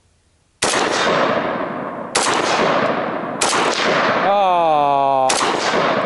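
Four rifle shots from an AR-style carbine, spaced about one to two seconds apart, each followed by a long echo rolling off across open ground. A drawn-out tone falling in pitch sounds between the third and fourth shots.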